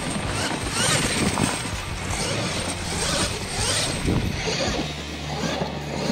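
RC monster truck driving hard over dirt: its motor whines up and down in pitch over a hiss of tires and spraying dirt. Background music with a steady bass comes back in from about five seconds in.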